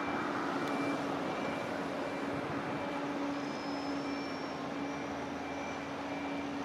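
Steady machinery noise with a constant low drone, and a faint high-pitched beep repeating in short, uneven dashes.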